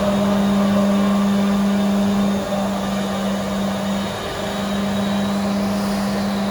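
A steady machine drone: a constant low hum over a wash of noise, dipping briefly twice.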